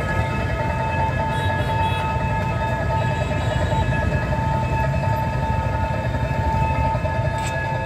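Railway level-crossing warning alarm sounding a steady, unbroken high tone, over a continuous low rumble.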